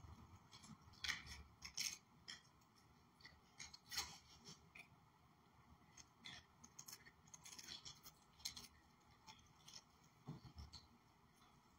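Near silence, broken by scattered faint rustles and small sharp clicks, a few a second at times, with a low hum underneath.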